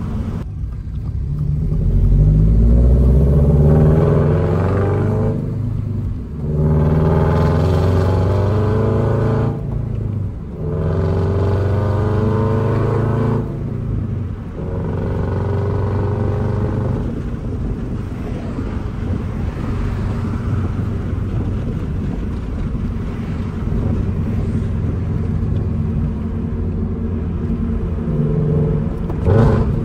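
The flat-four boxer engine of a Toyota GR86/Subaru BRZ, fitted with unequal-length Tomei headers and running catless, gives its uneven boxer rumble under hard acceleration. The note climbs and breaks off briefly three times in the first half as the car shifts up through the gears. It then runs more steadily, with another rev near the end.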